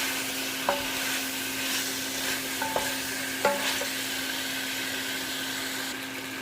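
Chicken pieces, potatoes and carrots sizzling in a frying pan with curry powder as they are stirred. The stirring utensil knocks against the pan about three times with a short clink. A steady low hum runs underneath.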